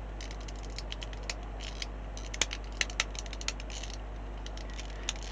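Small hard plastic clicks and taps as styrene model-kit parts are handled and pressed together, a rapid run of them in the middle, over a steady low hum.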